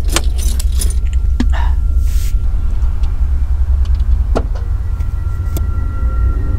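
Steady low rumble of a car running, with several sharp clicks and knocks from the cabin and a brief rustle about two seconds in; a faint steady high tone sits over it from about a second in.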